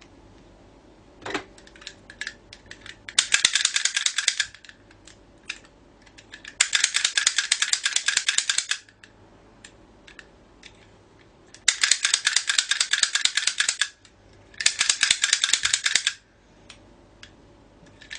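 Pick gun snapping in four bursts of rapid clicking against a pin-tumbler lock cylinder, with a few separate small clicks between the bursts. The lock holds: its high-security pins stop it being picked.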